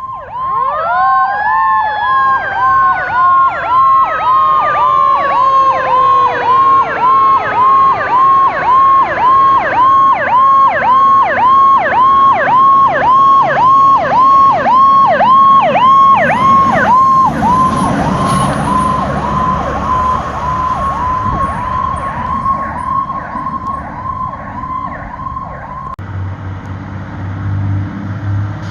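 An electronic siren cycling about twice a second. A Federal Q2B mechanical siren winds up fast at the start and then coasts down slowly over several seconds. Both sirens cut off near the end, leaving the rumble of a vehicle engine.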